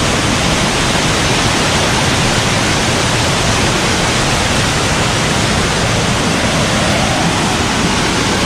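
A small waterfall pouring down through a rocky gorge, heard close up as a steady, loud rush of water.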